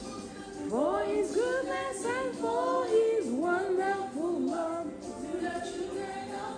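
Background music: a gospel song with a sung vocal line over steady accompaniment.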